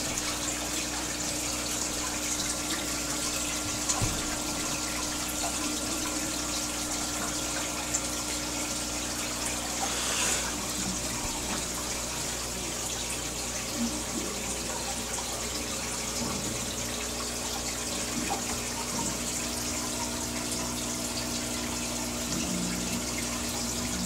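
Aquarium filter returning water into the tank, a steady splashing trickle, with a steady low hum underneath.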